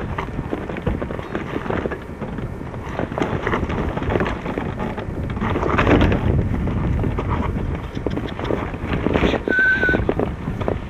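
A hang glider pilot's boots stepping and scuffing on stony gravel ground, with wind on the microphone. A brief high tone sounds near the end.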